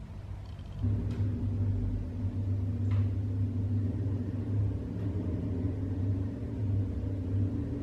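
A steady low mechanical rumble with a hum, setting in about a second in and holding on.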